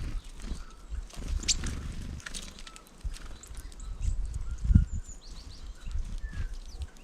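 Small birds at a feeder giving short, scattered chirps, with light taps and clicks, over a loud low rumble.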